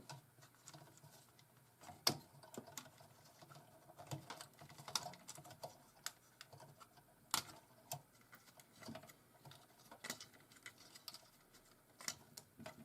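Faint, irregular light clicks and taps of hands handling wiring and small parts on a jukebox power supply.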